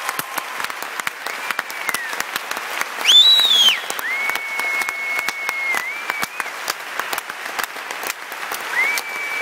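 Theatre audience applauding, with several long, piercing whistles over the clapping; the loudest and highest comes about three seconds in.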